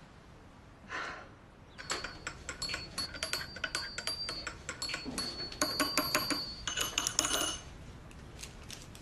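Glass clinking and chiming in quick clatters, mixed with rustling of brown paper. It starts about two seconds in, is loudest a little past the middle, and stops near the end.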